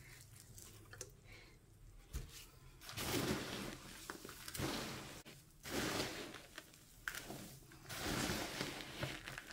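Gloved hands mixing damp, gritty succulent potting mix flecked with white perlite, giving a few rustling, scooping swishes about a second or two apart that begin about three seconds in.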